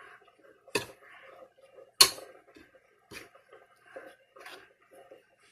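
A spoon stirring and scraping stiff flour-and-water dough in a bowl, with two sharp clicks of the spoon against the bowl, the louder one about two seconds in.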